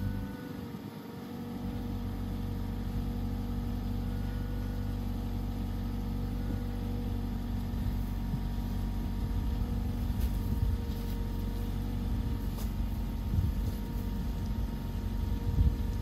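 Mazda6 sedan's engine idling steadily.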